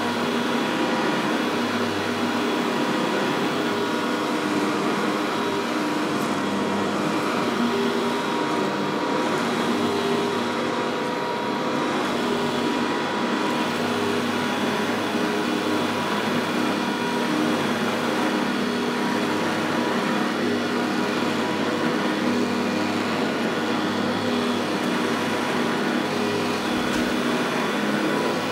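Upright vacuum cleaner running steadily, its motor giving a few constant tones over an even rush of air.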